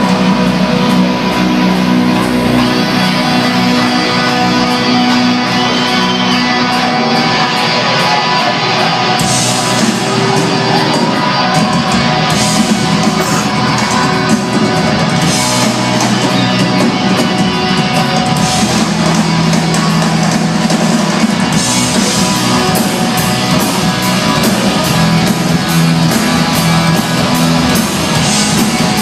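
Loud rock music with guitar, the cymbals coming in strongly about nine seconds in.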